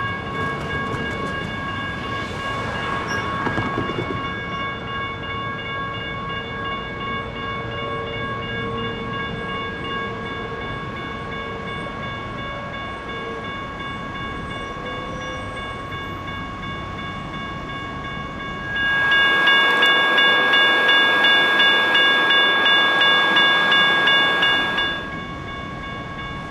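Railroad crossing's electronic bells (GS Type 1 E-Bells) ringing continuously as a light rail train moves through the crossing. About two-thirds of the way in, the bell strikes come louder at roughly two to three a second, joined by a rush of noise for about six seconds.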